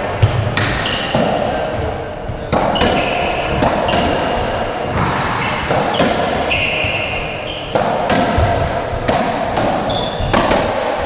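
A racketball rally: the ball is struck with strings and racquet and smacks off the court walls and wooden floor every half-second to a second, each hit echoing briefly in the enclosed court. Between hits come short squeaks of rubber-soled court shoes on the wooden floor.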